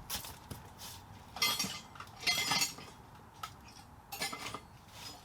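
Metal parts and tools clinking and rattling in several short bursts, as loose hardware is handled and sorted.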